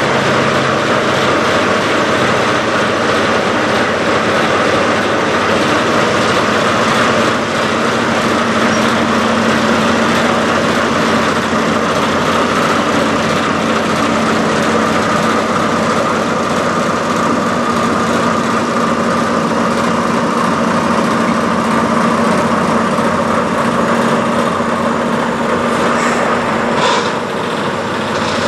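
Diesel engine of a Peterbilt semi truck idling steadily, with a few short clicks near the end.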